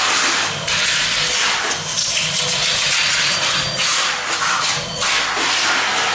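Vacuum cleaner running, its hose nozzle drawn over a drilled wooden pipe-organ board to suck dust out of the holes. The rushing air wavers and dips as the nozzle moves.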